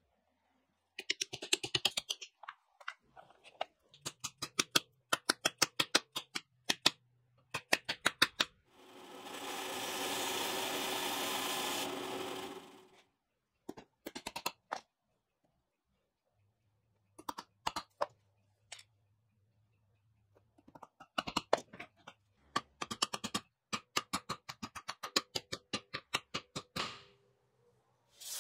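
Groups of quick, light taps, several a second, broken by dead silences, with about four seconds of steady rushing noise in the middle.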